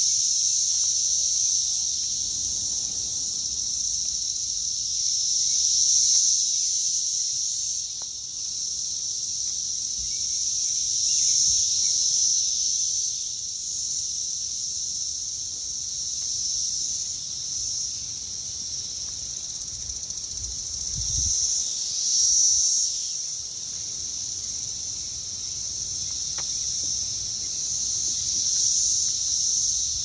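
Dense chorus of Brood X periodical cicadas: a steady, high-pitched drone that swells and eases every few seconds.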